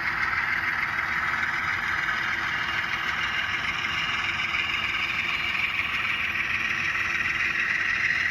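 HO-scale ScaleTrains Rivet Counter ES44 model locomotive running, its DCC sound decoder playing a steady diesel engine sound.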